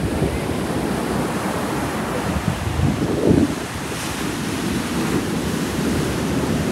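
Ocean surf breaking and washing up a sandy beach, with wind buffeting the microphone; a louder rush comes about three seconds in.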